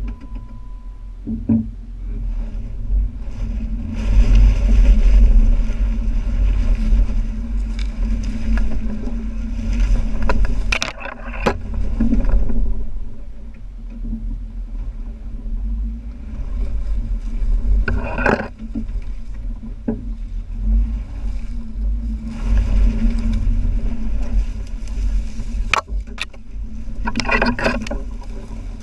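2012 Jeep Wrangler Unlimited JK's V6 running at low speed as it drives through a creek, with water splashing under the tyres. Several sharp knocks and scrapes stand out, the loudest about 18 seconds in and in a cluster near the end.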